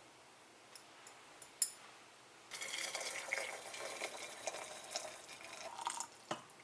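Water running into a vessel for about three and a half seconds, starting about two and a half seconds in. A few light clicks come before it, and a knock follows just after it stops.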